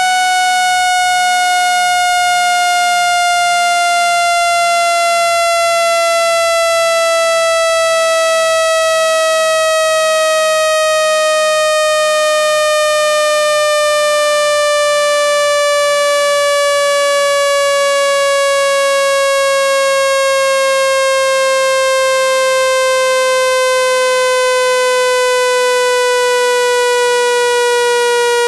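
Generated speaker-cleaning tone: one loud, buzzy pitched tone with strong overtones, falling slowly and steadily in pitch. It is played at full volume through a phone speaker to shake water and dust out of it.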